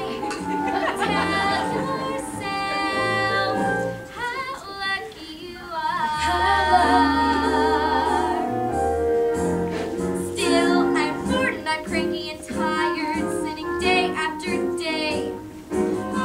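A woman singing a musical-theatre song over instrumental accompaniment, holding one long note with vibrato about six seconds in.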